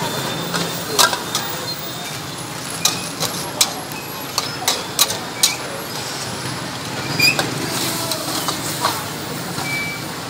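Metal ladle clinking and scraping against a steel wok as meat in sauce is stir-fried, in irregular sharp clinks, over a steady hiss of frying.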